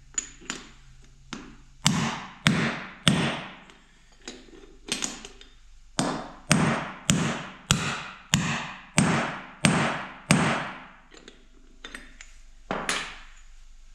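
Hammer striking a seal-driver disc to drive a new wheel bearing race into a 1989 Toyota pickup's front hub: about a dozen sharp metal blows that ring briefly, mostly about two a second, with a short pause after the first few and a last blow near the end.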